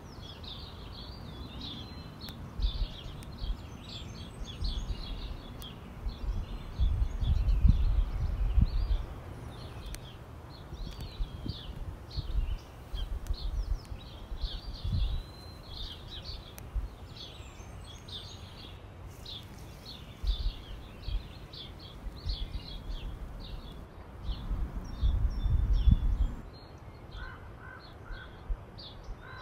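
Small birds chirping and singing continuously over a steady outdoor background, with a few short, evenly repeated calls starting near the end. Two loud low rumbles of a couple of seconds each break in, about a quarter of the way in and near the end.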